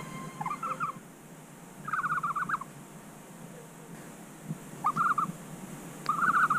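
Barn owl calling: four short, raspy, trilled calls, each under a second long, with pauses of a second or more between them.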